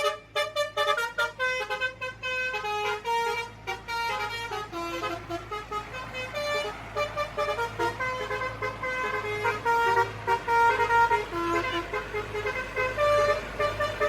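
Bus 'telolet' horn, a multi-tone musical air horn, playing a tune of short, quickly changing notes, with longer held notes later on. A steady low hum runs underneath.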